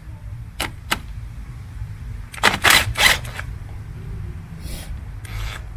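A 10 mm socket on a cordless drill working a car battery terminal nut. There are a couple of clicks, then a louder burst of scraping and rattling about two and a half seconds in, and brief scrapes near the end.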